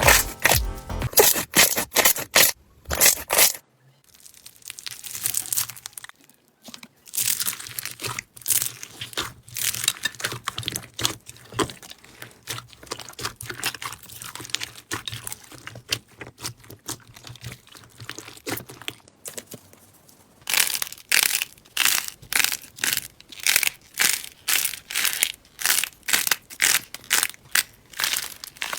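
Crunchy slime being squeezed and poked by hand, crackling and popping close to the microphone. The crackles are dense at first and softer and sparser for a stretch, then from about two-thirds of the way in come as loud crunchy bursts about twice a second.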